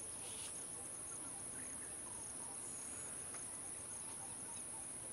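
Steady, high-pitched chorus of insects, an unbroken drone in the grassland.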